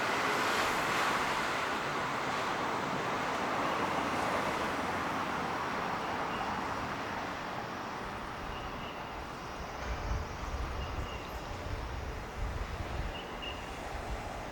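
Jet engine noise of a landed RC-135S, a steady rushing roar that fades gradually as the aircraft rolls away. Wind buffets the microphone in the second half.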